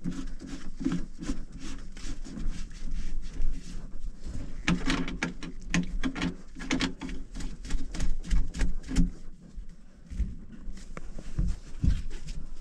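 Gloved hands working the white PVC drain trap under a kitchen sink: an uneven run of clicks and knocks of plastic pipe fittings being handled, busiest in the middle.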